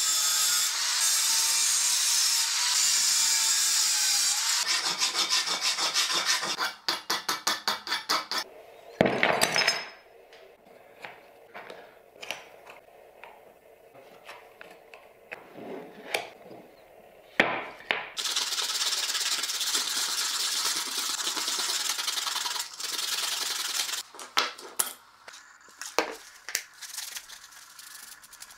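Angle grinder running against the edge of a copper sheet, stopping a little over four seconds in. Then a run of quick, even rubbing strokes, a sharp loud clatter, scattered light knocks of handling, and a second stretch of steady rubbing like hand sanding of the copper.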